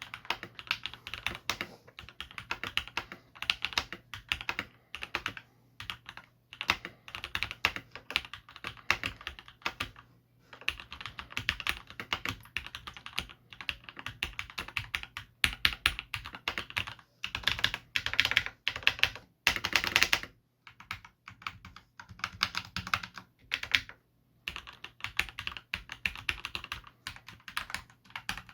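Keychron C1 mechanical keyboard, stock out of the box with Gateron Red linear switches, being typed on as a sound test. Keystrokes come in quick runs of a second or two with short pauses between them.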